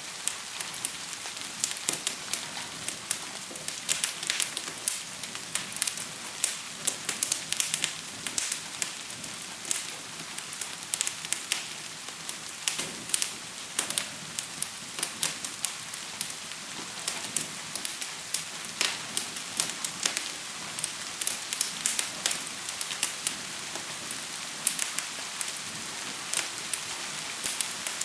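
Wood fire crackling and popping irregularly, several sharp pops a second, over a steady hiss of gentle rain.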